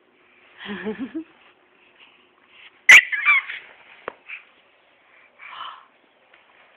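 A baby of about eight months vocalizing: a short, low, wavering babble about a second in, then a sharp knock followed at once by a loud high-pitched squeal, and a shorter squeal a couple of seconds later.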